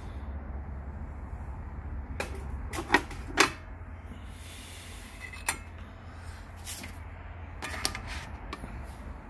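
Knocks and clicks of the metal platter of a Philips F7230 turntable being set back onto its spindle and hub by hand: a handful of sharp knocks, the loudest pair about three seconds in, over a low steady hum.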